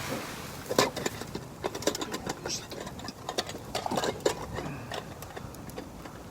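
Wood fire crackling, with irregular sharp snaps and pops over a low hiss.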